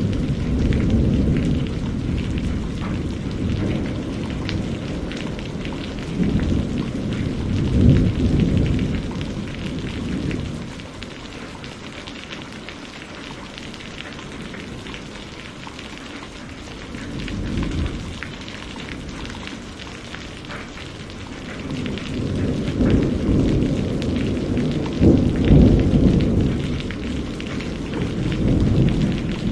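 Steady rain with rolling thunder. The low rumbles swell and fade, loudest about a quarter of the way in and again near the end, with a quieter stretch of plain rain between.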